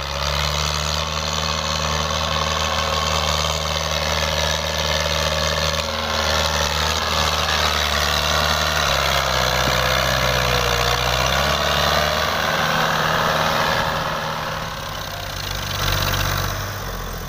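Fiat 640 tractor's diesel engine working hard under load, hauling a sand-laden trolley bogged in soft sand. Its note sags for a couple of seconds midway, then picks back up and holds steady.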